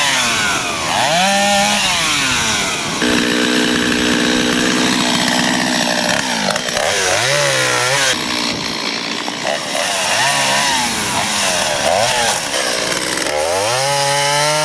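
Chainsaws running, revved up and down again and again, with a steady full-throttle stretch at about 3 to 6 seconds in.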